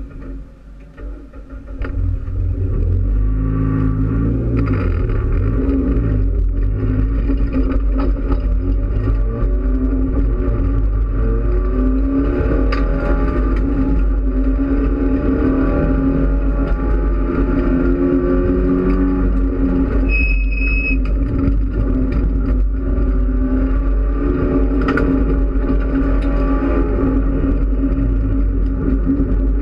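Mitsubishi Lancer Evolution X race car's turbocharged 2.0-litre four-cylinder engine, heard from inside the stripped cabin. It goes to full throttle about two seconds in and then runs hard, its pitch rising and falling as the car accelerates and slows through the corners. A short high beep sounds once about twenty seconds in.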